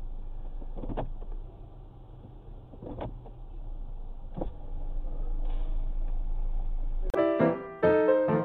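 Steady low hum of a car's engine idling, heard from inside the cabin, with a few faint knocks about one, three and four and a half seconds in. Near the end piano music starts suddenly and is louder than the hum.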